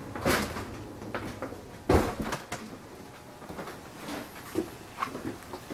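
A knock, then a loud thud about two seconds in, like a door or cabinet being shut, followed by lighter scattered knocks.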